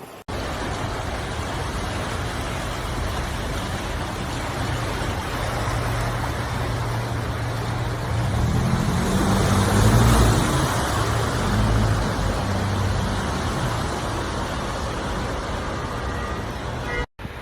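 A motor vehicle's engine over a steady rushing noise. The engine hum swells to its loudest about ten seconds in, then eases off, and the sound cuts off suddenly near the end.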